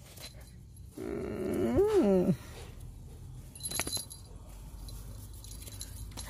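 A dog gives one whining call about a second in that wavers up and down and falls away at the end. Near the middle there is a brief metallic clink, like a collar tag or keys jangling.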